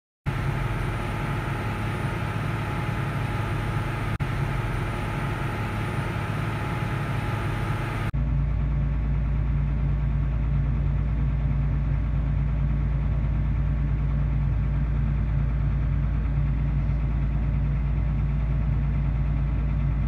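Steady machine drone heard inside a farm machine's cab. About eight seconds in it cuts to a deeper, steady tractor engine drone as the tractor pulls tillage equipment through snow.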